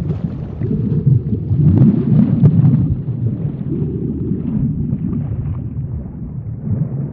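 Underwater ambience: a steady, low rumbling rush of water that eases off a little toward the end.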